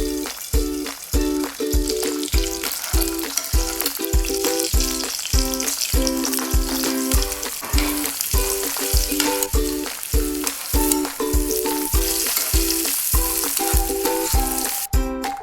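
Chicken frying in a pan, a steady sizzle that stops shortly before the end, over background music with a steady beat of about two beats a second.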